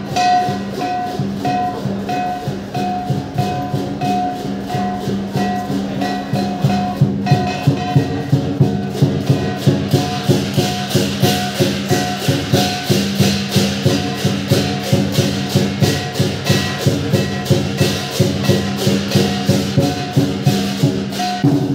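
Lion dance music: drum and clashing cymbals beating a steady rhythm over sustained tones. About halfway through, the cymbal strokes grow louder, at roughly three a second.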